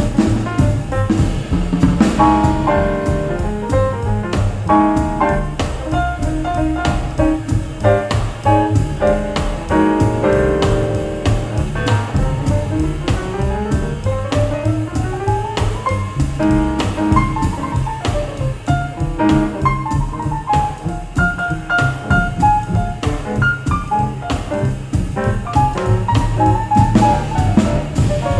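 Jazz music playing: a drum kit and bass keep time under a lead melody that plays quick rising runs.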